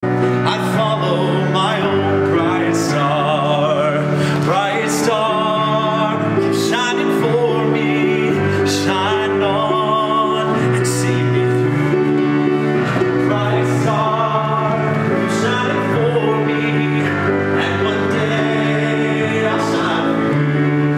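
A song with singing voices over steady instrumental backing, the sung lines held with vibrato.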